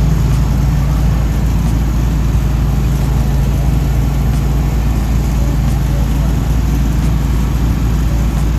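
Loud, steady machine running: a constant low hum under a broad hiss.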